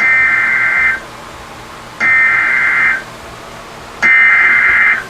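NOAA Weather Radio sending the SAME digital header of an Emergency Alert System alert: three buzzy data bursts of about a second each, a second apart. The header marks the start of a severe thunderstorm warning.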